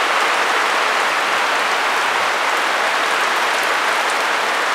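Heavy rain falling in a steady, even hiss of downpour.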